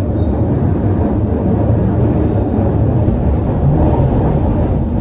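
Steady, loud rumble of a moving passenger train heard from inside the carriage.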